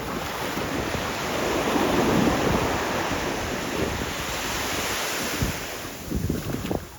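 Ocean surf washing in on the beach, swelling to its loudest about two seconds in and then easing, with wind buffeting the microphone.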